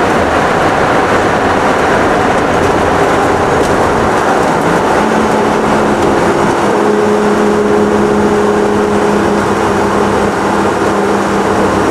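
Turbocharged BMW E30 heard from inside the cabin while driving: the engine runs under loud road and wind noise, and its note settles into a steady pitch about five seconds in.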